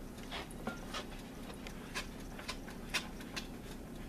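Faint, scattered taps and clicks as diced tomatoes and sliced black olives are swept by hand off a plastic cutting board into a mixing bowl, the board tipped against the bowl's rim, over a low steady hum.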